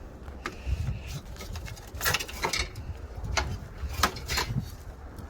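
Several separate clicks and light knocks, bunched about two seconds in and again near the end, from car parts and hand tools being handled during disassembly, over a low rumble.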